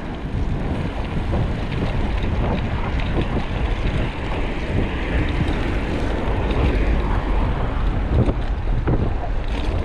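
Wind buffeting the microphone, a loud, steady rumble with no pauses.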